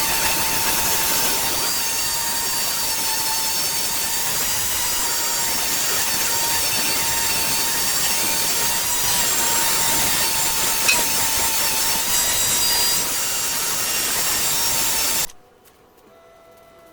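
Power woodworking tool running on walnut wood: a steady, hissing whir with a constant tone through it. It stops abruptly about fifteen seconds in.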